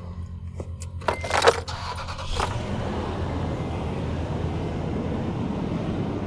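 Toyota Tundra being started with the key: a jangle of keys and clicks, then about a second and a half of starter cranking, after which the engine catches and settles into a steady idle.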